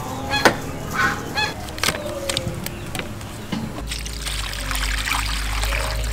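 Several short calls from domestic fowl in the first couple of seconds. Then, from about four seconds in, a stream of water pouring steadily into a pot of raw shrimp as a hand swishes them.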